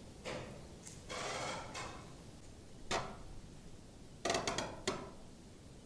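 A few short knocks and a scrape, then a quick run of sharp knocks about four seconds in, the loudest of them.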